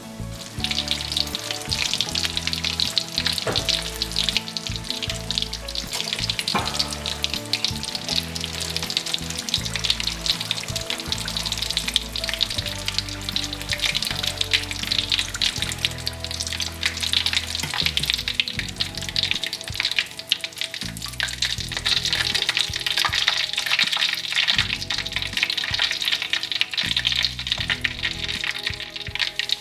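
Breaded caplin deep-frying in hot oil in a wok: a dense, steady sizzle and crackle of oil bubbling around the fish, a little stronger in the second half.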